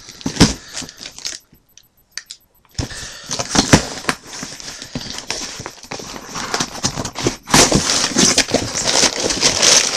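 A shipping package being opened by hand: packaging rustling and crackling with many small clicks. It pauses about a second in, then resumes and gets louder in the second half.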